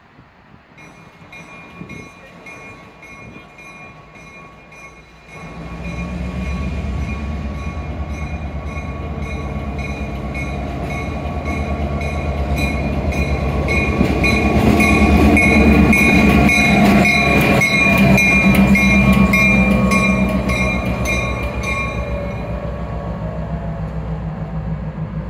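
Diesel switcher locomotive BN 3613 ringing its bell in a steady repeating rhythm while approaching and passing close by. Its engine rumble comes up sharply about five seconds in, is loudest in the middle as it goes past, and eases as it pulls away. The bell stops near the end.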